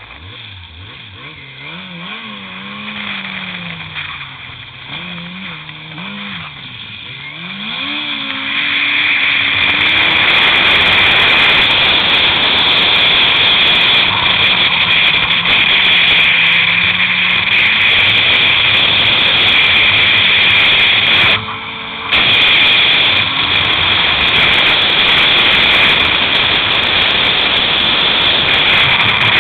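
Yamaha Apex snowmobile's four-cylinder four-stroke engine revving up and down for the first several seconds, then opened to full throttle about eight seconds in and held there at high speed under a loud rush of wind and track noise. The sound drops out briefly about two-thirds of the way through.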